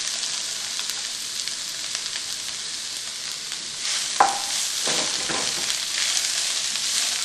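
Chopped bitter gourd sizzling steadily in hot oil in a frying pan, just added to the pan. A spatula stirs it, with a sharp knock against the pan about four seconds in and a few scrapes after.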